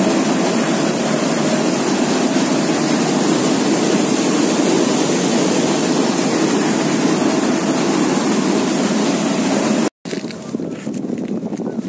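Combine harvester running steadily while cutting wheat: a loud, dense, even machine noise. About ten seconds in it cuts off abruptly and gives way to a quieter scene.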